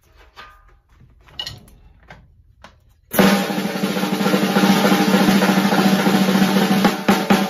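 Faint clicks and rattles as drumsticks are picked up, then about three seconds in a Pearl Session Studio Select drum kit starts suddenly with a loud, dense snare drum roll that breaks into separate strokes near the end.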